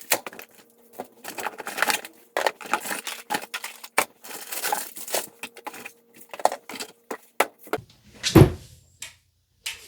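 Food packages and containers being handled in and out of a portable fridge: irregular rustling, crinkling and clicking, with one heavier thump about eight and a half seconds in. A faint steady hum runs underneath and stops about seven and a half seconds in.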